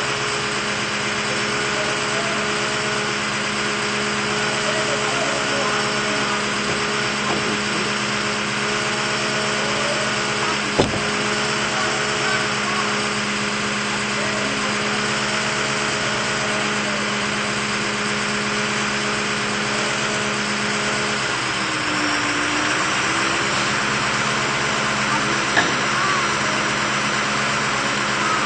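An engine running steadily at constant speed, its pitch dipping and recovering about 22 seconds in, with a single sharp knock about 11 seconds in.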